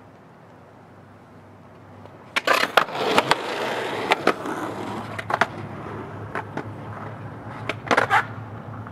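Roller skate wheels hitting and grinding along a concrete ledge. A clatter of knocks about two and a half seconds in runs into a scraping grind for about two seconds, followed by scattered clacks and another quick cluster of loud knocks near the end.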